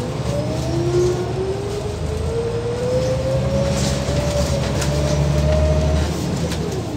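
Scania L94UB single-decker bus accelerating: a steady engine rumble with a whine that rises in pitch as it picks up speed, then falls away near the end.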